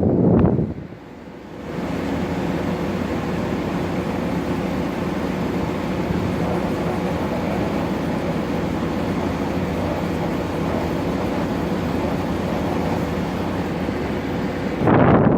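LG 12,000 BTU room air conditioner running in cool mode with its compressor on: a steady rush of fan air over a low compressor hum. The sound drops briefly about a second in, then holds steady, and grows louder just before the end.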